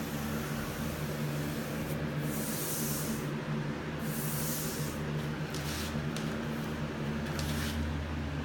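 Paintbrush strokes swishing primer onto bare old wood, several short hissy strokes, over a steady low hum.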